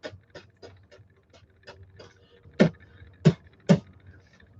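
A man making a string of mouth clicks, about three a second at first, then three louder pops over the second half.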